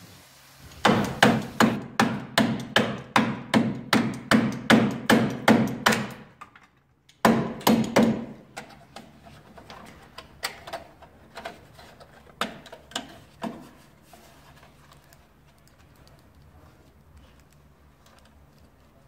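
A rapid series of hard knocks, about three a second for roughly five seconds. After a brief break come a few more knocks, then scattered, fainter ones that die away.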